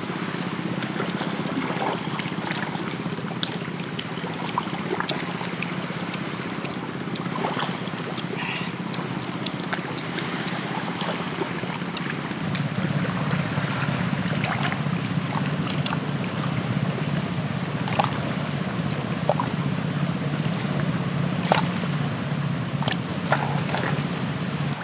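Pot of snails cooking in coconut water, a steady low bubbling with scattered sharp pops and crackles; it gets louder about halfway through.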